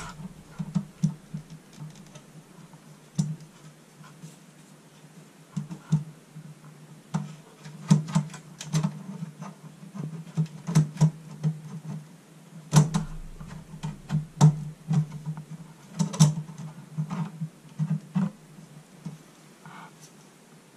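Irregular clicks and knocks of a computer case and its case fan being handled while the fan's cable is routed through the case, coming thicker from about eight seconds in.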